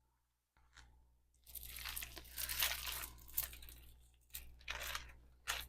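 Crinkling and rustling of packaging being handled and opened, a dense patch of crackling followed by a few sharp crinkles near the end.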